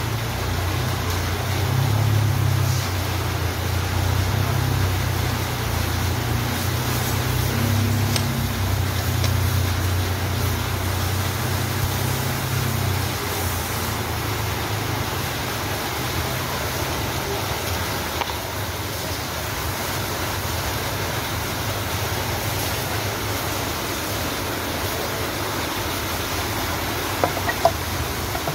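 Steady workshop background noise with a low engine-like rumble through the first half that fades about halfway. Near the end come a few light metal clinks as the transmission's differential is handled over the open aluminium case.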